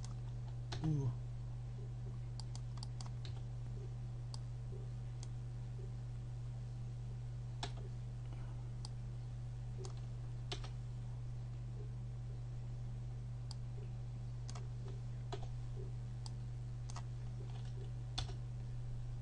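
Sparse, irregular clicks of a computer keyboard being typed on, over a steady low hum.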